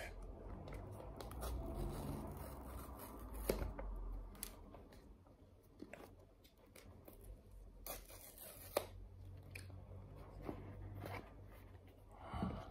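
Paper pull-tab seals being peeled off a cardboard iPhone 15 Pro box by hand: soft tearing and rubbing of paper and card, broken by a few small clicks.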